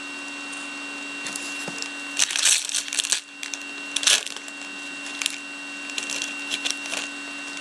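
Foil trading-card pack being torn open and its wrapper crinkled: a few sharp crackling rustles, the loudest about two to three seconds in and another about four seconds in, over a steady low hum.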